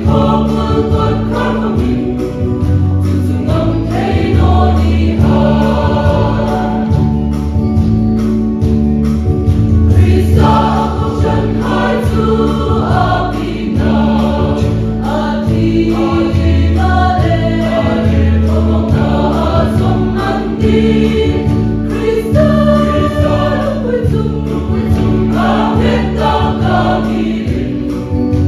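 A group of voices singing a hymn together over instrumental accompaniment, with a steady pulsing bass and a held low note underneath.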